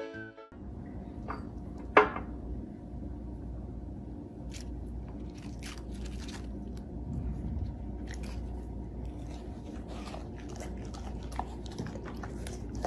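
Crisp lettuce leaves crunching as they are bitten and chewed, in irregular crackles over a steady low room hum, with one sharp click about two seconds in.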